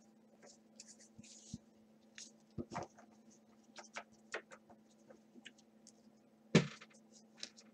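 Faint scattered clicks and slides of a stack of trading cards being handled and flipped through by hand, with one louder knock about six and a half seconds in, over a faint steady hum.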